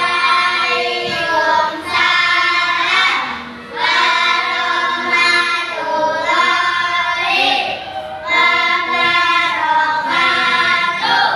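A class of primary schoolchildren singing together in unison, phrase by phrase, with short breaks for breath between phrases.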